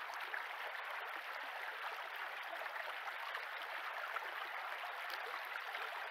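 Shallow stream flowing over a gravel bed: a steady, even rush of water.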